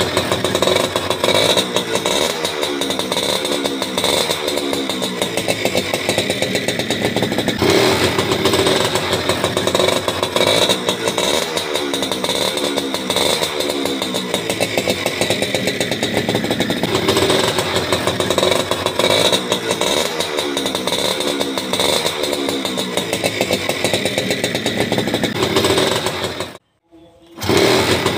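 Small two-stroke step-through motorcycle engine running and being revved over and over, the revs rising and falling in a cycle about every eight seconds. The sound breaks off briefly near the end.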